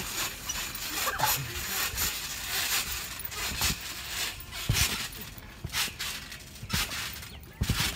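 Irregular thumps and rustling of someone bouncing on a trampoline, the mat and springs giving with each landing.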